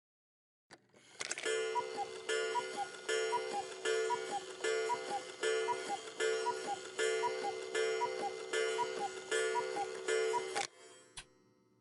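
Cuckoo clock striking the hour: its cuckoo calls a falling two-note call about a dozen times in quick succession, roughly one call every three-quarters of a second. The clock's ticking starts again near the end.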